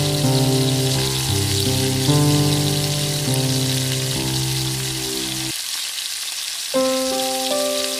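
Steady sizzling hiss from rice cooking in water in a small aluminium pot over a miniature wood fire. Melodic background music plays over it and breaks off for about a second, five and a half seconds in.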